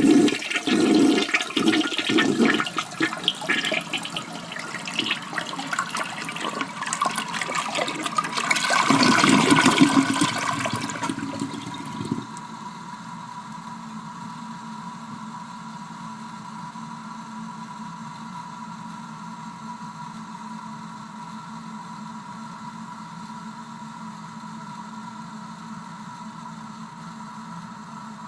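Toilet flushing: loud rushing, gurgling water for about eleven seconds, swelling to its loudest just before it drains away about twelve seconds in. Then a steady, quieter hiss with a faint hum as the cistern refills.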